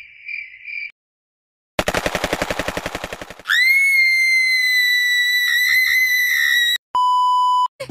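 A collage of sound effects. Crickets chirp briefly, and after a short silence there is a fast burst of machine-gun fire. A long, shrill, high-pitched scream of about three seconds follows, then a short steady bleep near the end.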